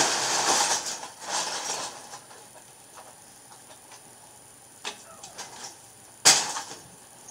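Plastic Lego bricks being handled: a noisy rattle of pieces at the start and again about a second later, then a few light clicks and one sharper click about six seconds in.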